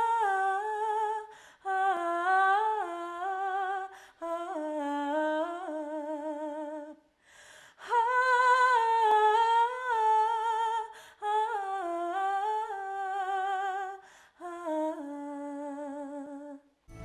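A woman's solo voice singing a wordless, unaccompanied melody with vibrato, in several phrases broken by short breaths.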